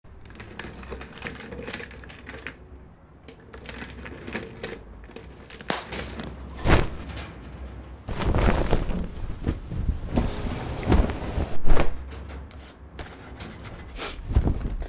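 Light clicking and clattering at a laid dinner table, with stretches of rustling and a few louder knocks, the sharpest about seven seconds in and near twelve seconds.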